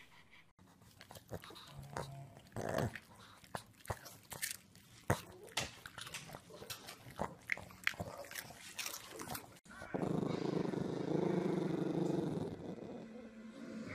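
A pug making scattered short clicking and snorting noises. About ten seconds in, these give way to a steady low grunting rumble as it is stroked.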